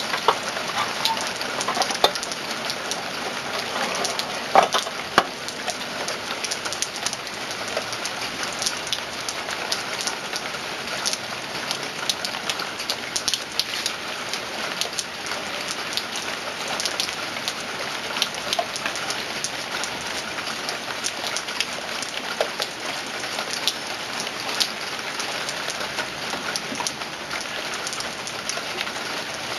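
Rain falling steadily: a dense, even hiss of drops with a few louder single drips standing out.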